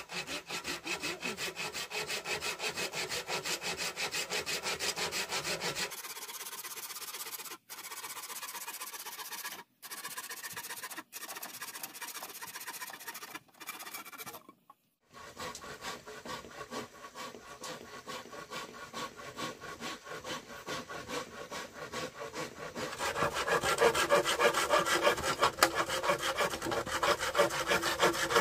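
A hand pruning saw cutting through a green bamboo pole in quick, even back-and-forth strokes, about two to three a second. The sawing breaks off a few times in the middle and is louder in the last few seconds.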